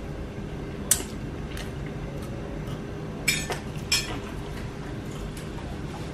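A metal fork clinking against a plate: a sharp clink about a second in and two more between three and four seconds in, over a steady low hum.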